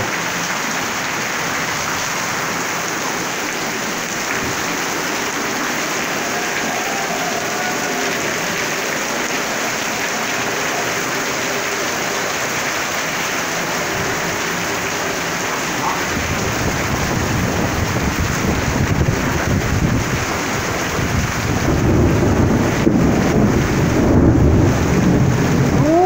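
Heavy rain pouring down in a windy storm, a steady hiss. About two-thirds of the way through, a low rumble builds and grows louder to the end.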